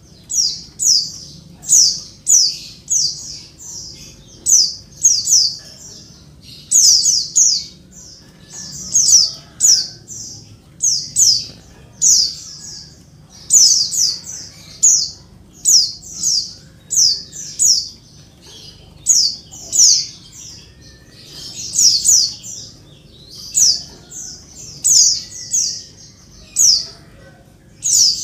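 Female white-eye (pleci) calling in rapid high-pitched chattering bursts, each a quick run of three to five falling notes, about one burst a second without a break. It is the female call that stirs male white-eyes to answer and sing.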